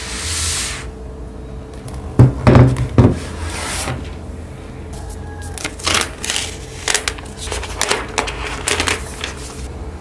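Unboxing handling noise: a hissing slide of the cardboard box near the start and a few loud knocks two to three seconds in, then the laptop's thin plastic protective wrap crackling and rustling as it is peeled away.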